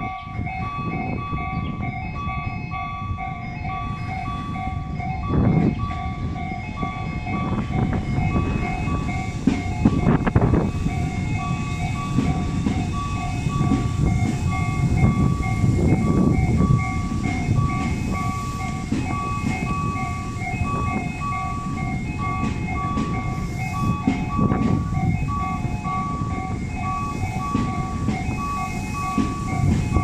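Level-crossing warning bell clanging in a steady, even repetition over heavy wind buffeting on the microphone, while a Tobu 250 series Ryōmō limited express electric train runs slowly into the station below.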